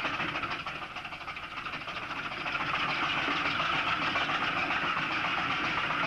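Steam train running, with rapid, evenly repeating exhaust beats and wheel clatter that dip a little about a second in and then grow louder.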